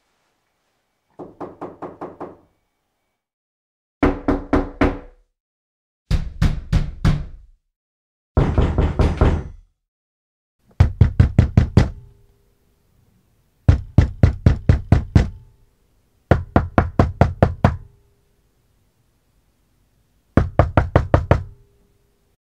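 Knocking on a door in eight separate bouts, each a quick run of about six to eight knocks at roughly five a second, with short pauses between; the first bout is quieter than the rest.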